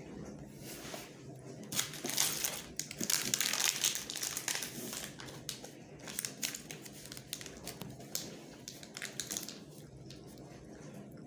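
Chocolate bar wrapper crinkling as it is handled, loudest for about three seconds starting two seconds in, then in short spells of crackling that die away near the end.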